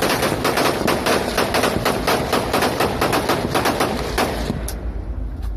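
Several INSAS 5.56 mm rifles firing together in a ragged volley, many shots a second overlapping one another. The firing thins out and stops about four and a half seconds in, after a last few shots.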